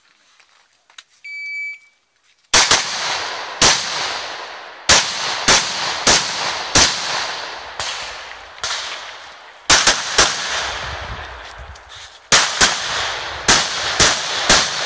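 An electronic shot timer gives one short beep. About a second later a rifle opens fire: a fast, irregular string of loud shots, many in quick pairs, each with an echoing tail.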